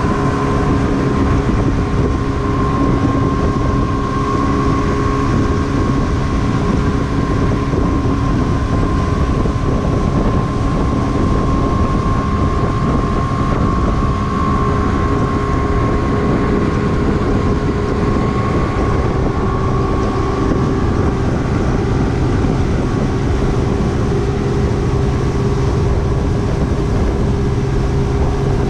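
Twin 200 hp Evinrude E-TEC two-stroke outboards running steadily at speed with a constant drone, under wind buffeting the microphone and water rushing from the wake.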